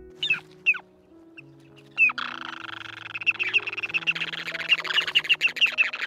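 Ruddy turnstones calling: two short falling notes, then from about two seconds in a fast, continuous chattering twitter.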